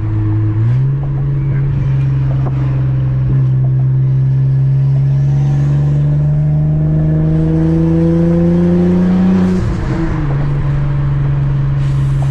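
Saab 9-3 Aero's turbocharged 2.8 V6 engine accelerating. Its pitch steps up within the first second, then climbs steadily for about nine seconds, drops sharply on a gear change, and holds level after it.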